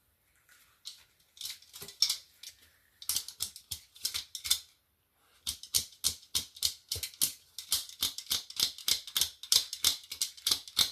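A dachshund crunching something hard and brittle with its teeth, in quick irregular crunches that pause briefly about five seconds in.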